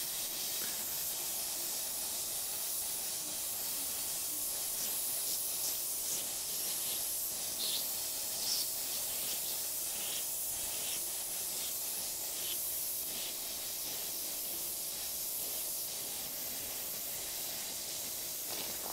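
Pop-up lawn sprinkler spray heads hissing as compressed air from a small air compressor forces the last water out of the irrigation line during a winterizing blowout, with faint spits here and there around the middle. The water is nearly gone and air alone is taking over, so pressure is about to fall too low to hold the heads up.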